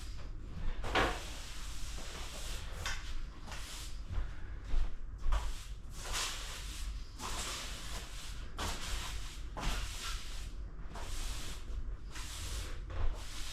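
An irregular run of short scraping and rubbing sounds, one or two a second, over a steady low rumble.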